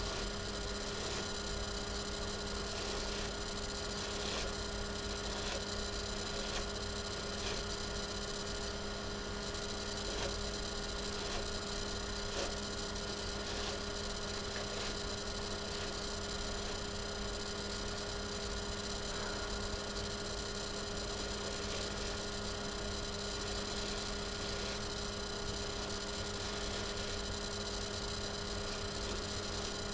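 Steady electrical hum made of several fixed pitches, with faint short strokes now and then as a detangling brush is pulled through hair.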